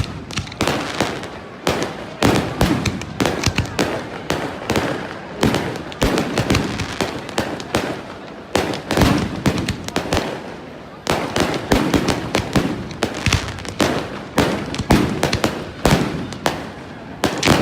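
Fireworks display: a rapid, dense run of bangs and crackles, many per second, easing briefly about ten seconds in before picking up again.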